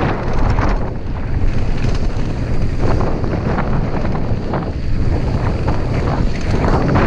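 Wind buffeting the microphone with a steady low rumble and scattered light knocks, as from a mountain bike ridden along a trail.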